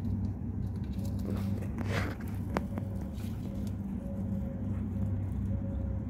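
Steady low machine hum, with a short rustle about two seconds in and a sharp click soon after.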